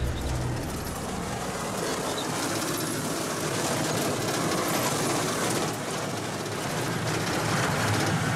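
Old truck driving over a rough dirt track, heard from inside the cab: a steady run of road and engine noise with the cab rattling.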